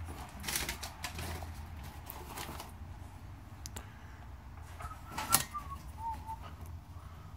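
Scattered clicks and knocks of a vacuum tube tester being handled, a tube fitted into its socket and its knobs set, with one sharper click about five seconds in and a brief faint squeak just before it, over a steady low hum.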